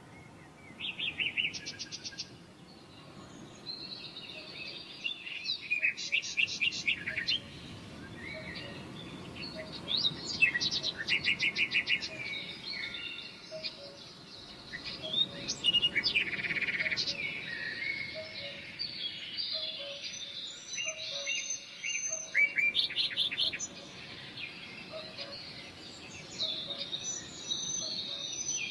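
Several birds singing and chirping, with overlapping quick trills and whistled phrases throughout.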